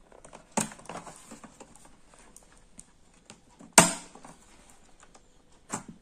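Plastic clicks and taps as a Dell laptop keyboard is pried loose from its retaining latches, with a sharp snap about four seconds in and another near the end.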